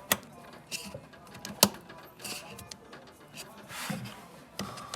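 A RAM module being pressed into a motherboard slot, with sharp plastic clicks as it seats and the retention clips snap shut. The two loudest clicks come right at the start and about a second and a half in, with short rustles of handling in between.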